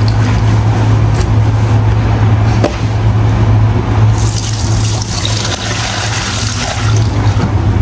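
Tap water running and splashing as clothes are rinsed by hand, over a steady low hum. The rush of water grows louder about four seconds in.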